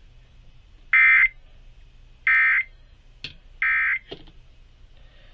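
Emergency Alert System end-of-message tones: three short identical bursts of SAME digital data, a harsh buzzing warble, about a second and a third apart, marking the close of the alert. A couple of faint clicks come between the later bursts.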